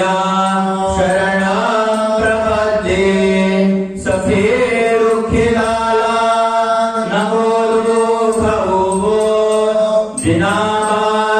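Men singing a devotional Marathi chant in long phrases with held notes that slide in pitch, with a steady low tone running underneath and short breaths between phrases about four seconds in and near the end.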